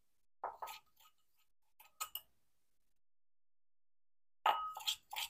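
Steel kitchen vessels clinking and scraping as crushed peanut masala is emptied from a steel mortar into a steel bowl: a few short metallic clicks near the start, two more about two seconds in, and a quick run of them near the end.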